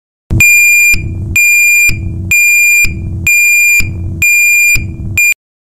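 DNI3505 piezoelectric reversing alarm sounding its intermittent warning: a high, steady beep about half a second long, repeating about once a second, five times, with a low noise in the gaps. A sixth beep is cut short near the end.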